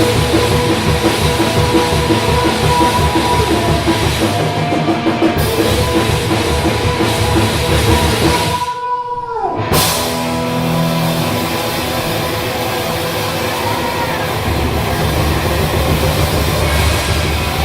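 Loud live rock band playing: a drum kit with distorted electric guitar. About nine seconds in there is a short break, and then the band carries on.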